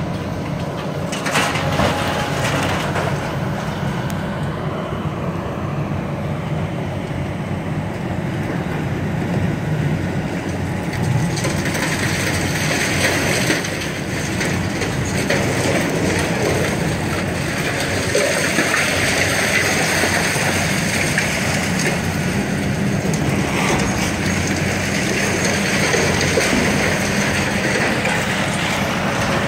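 Heavy tracked demolition excavators running steadily while they crush and pull down concrete and steel, with grinding and crunching of debris over the engine noise and a few sharp impacts.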